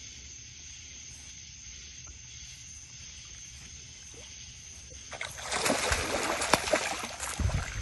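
A hooked fish thrashing and splashing at the water's surface, starting suddenly about five seconds in and going on in bursts.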